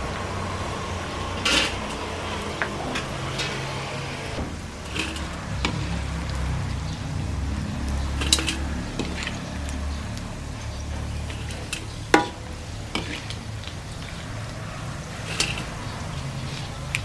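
Kitchen utensils knocking and clinking against pots or bowls, several scattered strokes with the sharpest about twelve seconds in, over a steady low hum.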